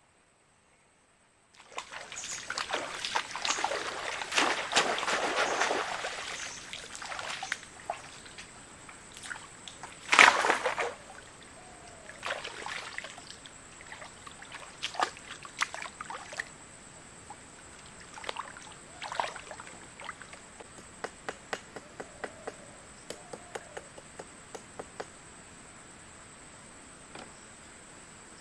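Water splashing and trickling for several seconds, with a louder splash about ten seconds in, then separate drips that grow sparser.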